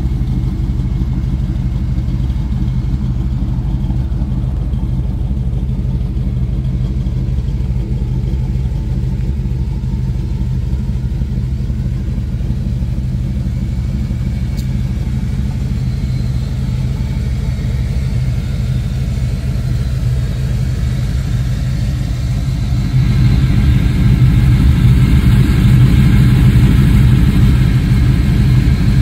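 Oldsmobile Cutlass's engine running with a steady low rumble, growing louder and fuller about three-quarters of the way through.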